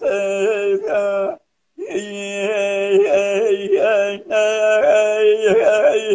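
A man singing hore, the unaccompanied Kurdish vocal chant, in long held notes with wavering, ornamented pitch. There is a short break for breath about a second and a half in. It is heard over a video call.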